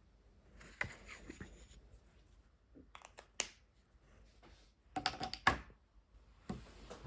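Small plastic clicks and rustling from handling water-based marker pens, Spectrum Noir Tri-Colour Aqua, as they are uncapped, capped and set down, in four short clusters.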